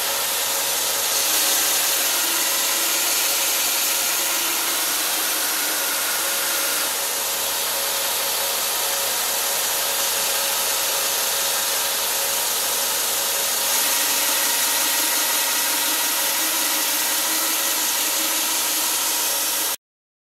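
Belt grinder running with a pattern-welded bowie knife blade held against the moving abrasive belt to work its edge: a steady grinding hiss over the machine's hum. It cuts off suddenly near the end.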